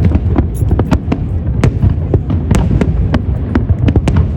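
Fireworks display going off in quick succession: sharp cracks several times a second over a continuous low rumble of bursts.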